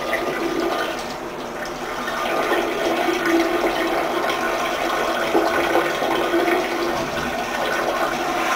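A stream of urine splashing into the water of a toilet bowl, a steady splashing hiss that grows a little louder about two seconds in.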